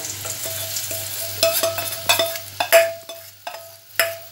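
A metal spoon stirring and knocking against a pan as besan-and-water batter is worked into a hot oil tempering; each irregular stroke leaves the pan ringing briefly, over a sizzle. The sharpest knocks come in the second half.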